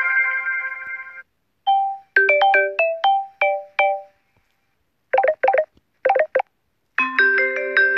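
Samsung Galaxy S7 ringtones played back one after another. A held chord cuts off about a second in, then comes a quick run of short bell-like notes, then two pairs of brief buzzy trills, and near the end a new chord builds up note by note.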